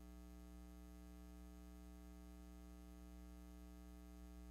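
Near silence apart from a steady low electrical mains hum with its overtones, unchanging throughout.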